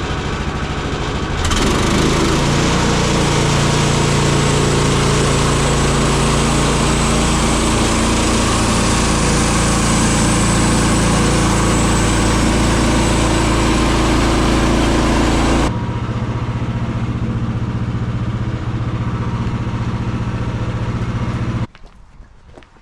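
Small gas engine of a bandsaw sawmill running at speed while the band blade makes its opening cut through a partly rotten yellow poplar log. The sound is loudest and fullest from about two seconds in to about sixteen seconds, then runs steadier and lower, and stops abruptly near the end.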